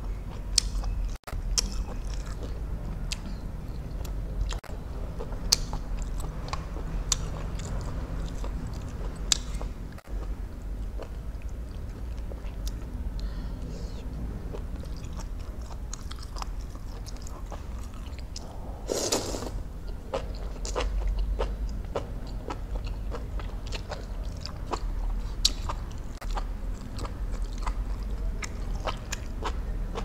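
Close-miked chewing of noodles and seafood: wet mouth smacking with sharp clicks every second or so. Once, a little past the middle, there is a short, louder slurp.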